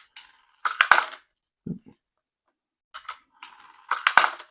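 Quarters clinking and clattering as a toy coin-eating robot swallows them, with two louder clatters about a second in and near the end and a few smaller clicks between.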